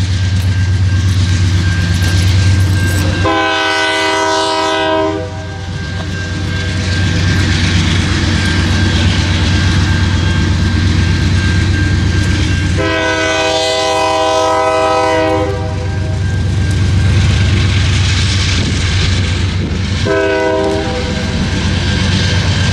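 CN diesel freight locomotives hauling an ore train, with a steady low engine rumble. The locomotive horn sounds a long blast about three seconds in, a longer one around thirteen seconds, and a short one near twenty seconds.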